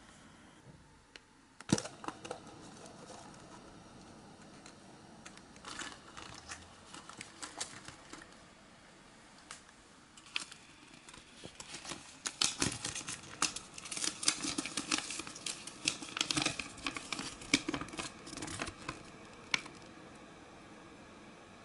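Yellow plastic Kinder surprise toy capsule snapping open with one sharp click, followed by small plastic toy parts being handled and a wrapper and paper leaflet crinkling. The crinkling and rustling is loudest and busiest from about twelve to twenty seconds in.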